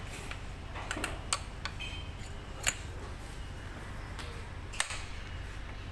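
A few sharp clicks and light knocks of metal parts as a PCP air rifle's barrel is handled and seated back into its housing: a quick cluster in the first two seconds, then single louder clicks near the middle and near the end, over a steady low hum.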